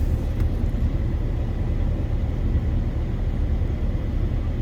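Inside a moving truck: a steady low rumble of the engine and the tyres on the road.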